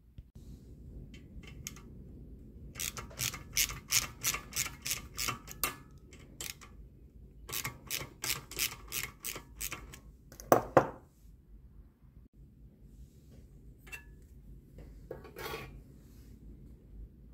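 Metal ratcheting clicks in two runs of about four to five clicks a second, then one louder clunk a little past halfway, from hand-tool work on the flywheel and starter clutch of a small Briggs & Stratton engine.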